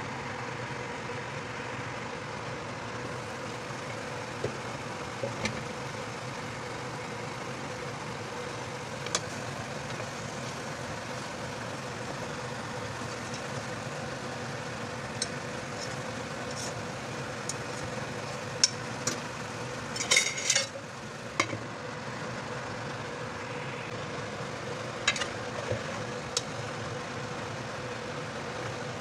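Cubed meat sizzling steadily as it fries in a pan, over a constant hum. A few sharp clicks and scrapes of a wooden spatula against the pan are spread through the sound, with a quick cluster of them about twenty seconds in.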